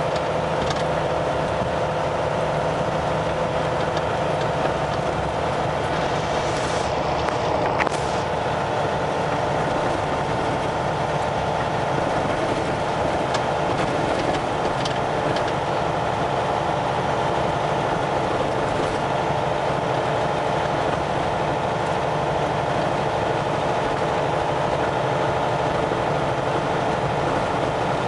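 Kenworth semi truck's diesel engine and tyre noise heard inside the cab, running steadily along a gravel road, with a few brief ticks about seven to eight seconds in.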